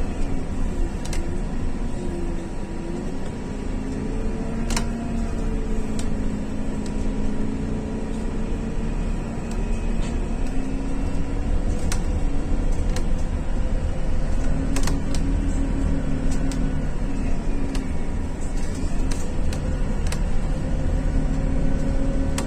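Scania CityWide 12LF city bus with its compressed-natural-gas engine, heard from inside the passenger saloon while driving: a steady low rumble under an engine note that rises slowly as the bus picks up speed. There is a faint steady whine and scattered sharp rattles from the body.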